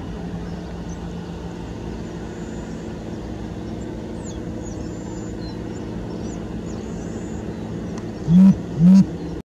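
Boeing 737 MAX 8's CFM LEAP-1B turbofans at takeoff thrust as the jet lifts off and climbs away, a steady low rumble with faint bird chirps over it. Near the end come two loud short low sounds, and then the sound cuts off suddenly.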